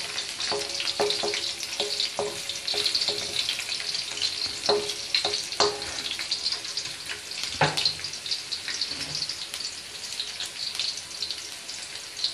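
Chopped garlic sizzling in hot oil in a wok. A wooden spatula stirs it, scraping and knocking against the pan now and then, and each knock rings briefly. The knocks come mostly in the first eight seconds.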